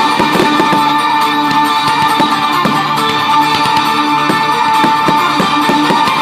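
Music with sustained instrumental notes playing loudly, with a scattering of sharp firework bangs and crackles over it.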